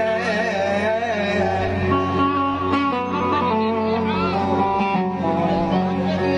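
Music: a man singing with a wavering, ornamented melody over plucked-string accompaniment.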